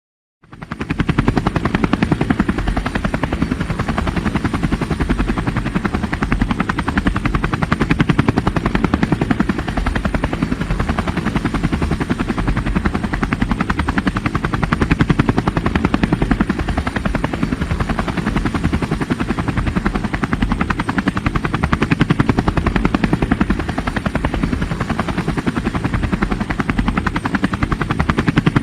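Military helicopter's rotor chopping steadily in a rapid, even beat, heavy and low, with a faint thin high whine over it. It starts about half a second in and holds the same level throughout.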